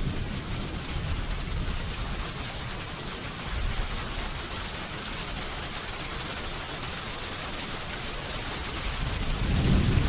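Steady rain falling, an even hiss. The last of a thunder rumble dies away at the start, and a low roll of thunder builds again near the end.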